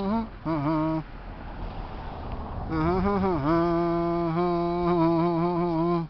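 A man humming in long held notes: a short note that breaks off about a second in, a stretch of rushing breathy noise, then a long steady note held to the end.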